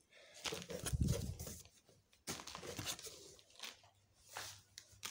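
An empty cardboard box being handled and shifted: irregular rustling and scraping of the cardboard, with a dull thump about a second in.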